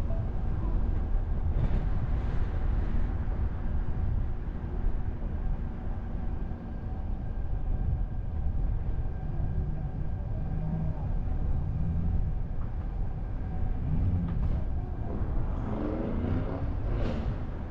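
City traffic and road noise heard from a car driving on urban streets: a steady low rumble of tyres and engines. Near the end, a passing vehicle adds a brief rising whine.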